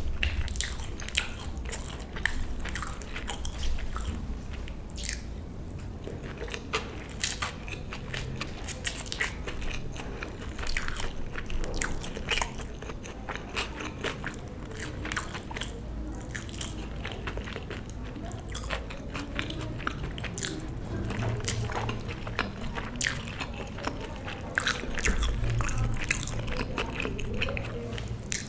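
A person eating close to the microphone: bites and chewing, with many short crunches at an irregular pace.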